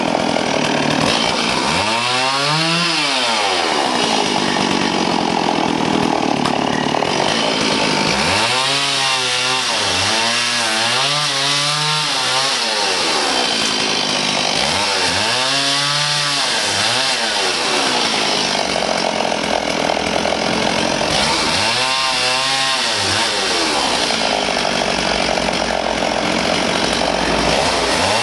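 Power saw cutting wood: a loud, continuous rasping whine whose motor pitch climbs and drops again in several surges.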